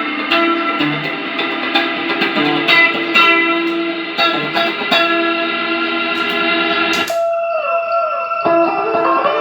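Electric guitar played through a Line 6 POD HD500 multi-effects unit into a Pignose G40V tube amp, a run of picked notes with effects. About seven seconds in a sharp stroke is followed by notes sliding down and back up in pitch.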